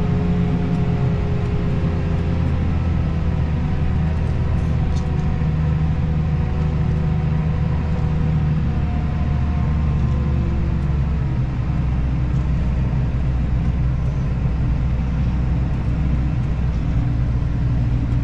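Diesel engine of a farm machine running steadily: a deep, even drone whose note shifts slightly about eleven seconds in.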